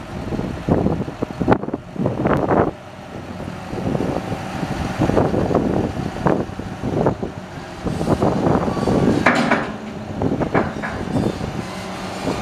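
John Deere 6190R tractor's six-cylinder diesel engine running steadily while the front loader lifts and curls the bucket under hydraulic power, with repeated irregular thumps over it.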